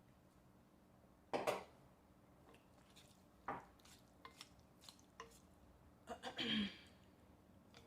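Close-up eating sounds over a bowl of spicy ramen. There are two sharp knocks of a utensil against the dish, a few small clicks, and a longer, louder noisy sound near the end.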